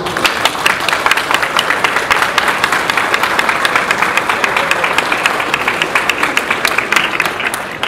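An audience applauding, many hands clapping densely. It starts abruptly and cuts off just before the end.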